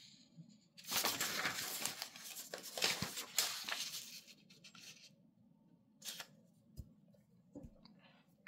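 Sheets of paper rustling and sliding for about three seconds as the written page is pulled away and a blank sheet laid down, then a few faint taps.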